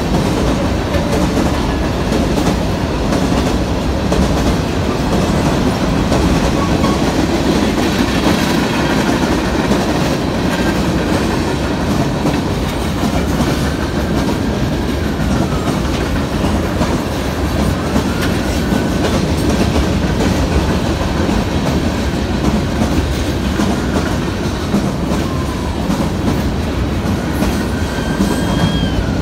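Freight train cars rolling past at a road crossing: a steady rumble of steel wheels with clickety-clack over the rail joints. A few faint high squeals rise and fall briefly in the second half.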